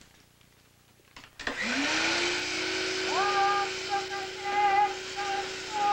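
A canister vacuum cleaner is switched on about a second and a half in. Its motor spins up with a rising whine, then runs steadily with a loud rushing hiss. From about three seconds in, a woman hums a wavering tune over it.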